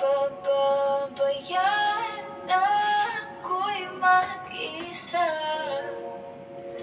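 Pop song playing, a woman singing a melody over steady held backing chords.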